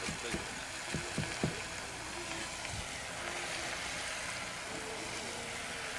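Spinach and mushrooms sautéing in a pan with a quiet, steady sizzle. A few light knife taps on a wooden cutting board, from slicing leeks, come in the first second and a half.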